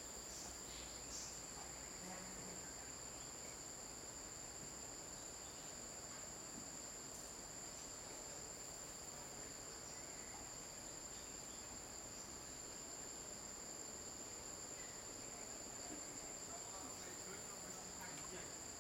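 Faint, steady chorus of insects: a continuous high-pitched drone at two pitches that holds level without a break.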